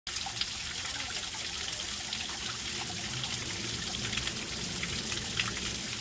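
Small garden waterfall: a thin stream of water falling down a rock face and splashing into a pond, a steady trickle with scattered small splashes.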